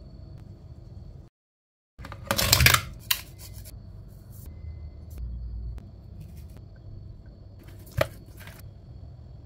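Hands preparing food: a short, loud, harsh scraping noise about two seconds in, then quieter handling of fish fillets and seasoning, with a sharp click near the end.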